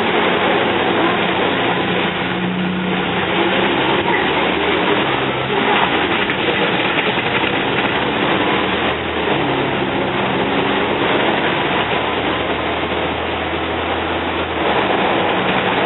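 Inside a Volvo Olympian double-decker bus: its Cummins L10 straight-six diesel engine running under way with heavy road and cabin noise, its note rising and falling several times and easing off near the end.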